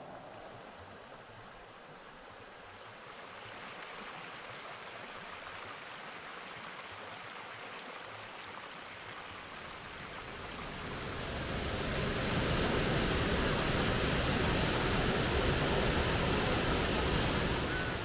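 Rushing water of a waterfall and stream, a steady noise that grows much louder about ten to twelve seconds in and eases near the end.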